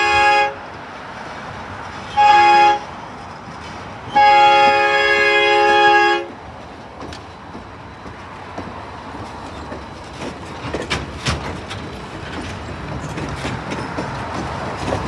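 McCloud 25 steam locomotive's chime whistle sounding a crossing signal: a blast ending just after the start, a short blast about two seconds in, and a long blast of about two seconds. Then the passenger cars rumble past, their wheels clicking over the rail joints.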